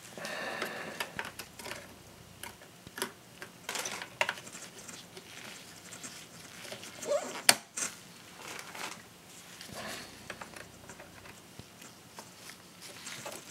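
Small clicks, taps and scrapes of a laptop SO-DIMM memory module being handled and pushed into its memory slot, with one sharper click about seven and a half seconds in.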